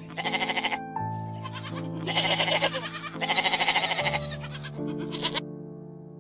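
Goats bleating, a series of about five wavering calls one after another, over background music with sustained tones.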